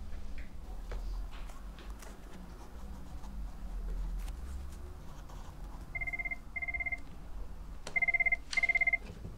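Telephone ringing with an electronic trill: two double rings, about six and eight seconds in, the second louder, after several seconds of quiet room tone with faint clicks.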